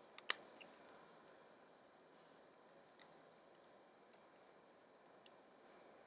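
Plastic mechanical keyboard switches being pressed and seated into a key plate: one sharp click about a third of a second in, then a few faint scattered clicks and taps.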